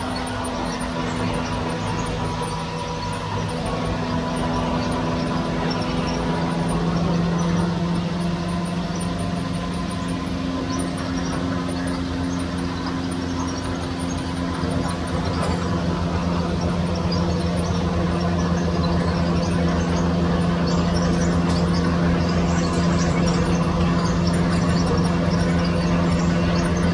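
Wheat-cleaning sieve machine running with a steady hum, wheat grains rattling continuously over its vibrating perforated screen.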